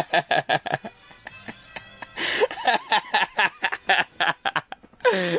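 Boys giggling and snickering in short rapid bursts, stifled laughter in two bouts with a lull of about a second between them.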